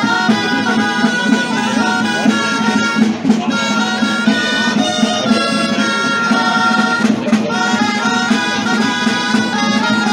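Traditional folk music played on reedy wind instruments: a stepping melody over a steady low drone.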